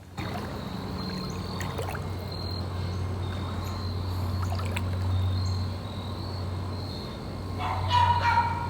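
Creek water running steadily. From about three-quarters of the way through, a dog whines in high, wavering yelps.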